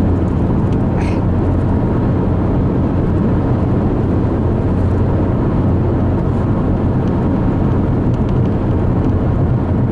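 Steady road and engine noise of a car driving at highway speed, heard from inside the cabin: a constant low rumble with tyre hiss.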